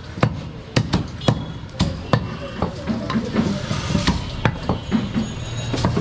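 Butcher's blade chopping goat meat on a wooden log block: a run of sharp knocks, about two a second and unevenly spaced.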